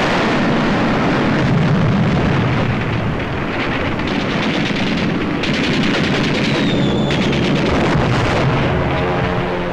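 Battle sounds on a 1940s film soundtrack: a continuous din of explosions and gunfire from the bombardment of a city. A quick rattle of rapid fire comes in the middle, with a brief falling whistle.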